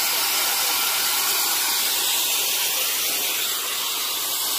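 A steady hiss that does not let up.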